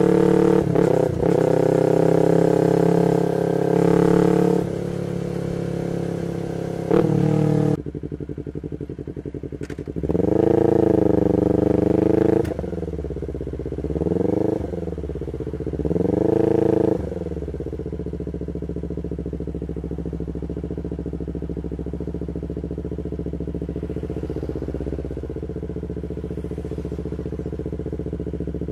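Yamaha MT-25's parallel-twin engine through an R9 full exhaust, running steadily at cruising speed, then dropping in revs as the bike slows. About ten seconds in come three short rises and falls in revs, and from about halfway through it settles into a steady idle.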